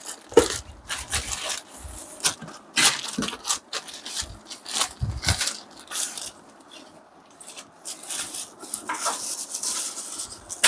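Equipment parts and packaging being handled: an irregular run of clicks, knocks and crinkly rustles, thinning out for a moment around seven seconds in.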